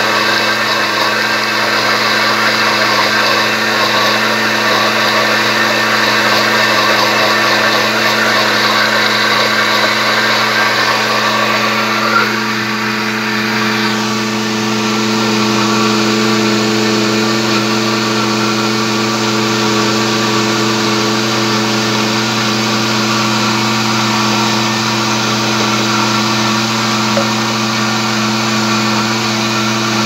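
Walita Master Pro blender motor running steadily at high speed, blending a thick batter of whole jabuticaba fruit, seeds included, with oil, eggs and sugar. A short click comes about twelve seconds in, after which the sound is slightly duller.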